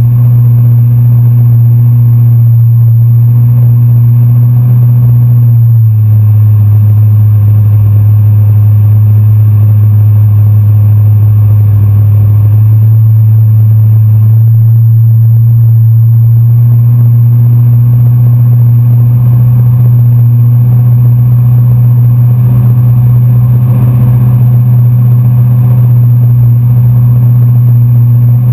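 Pickup truck engine running steadily through swamp water, a loud low drone that drops a little in pitch about six seconds in.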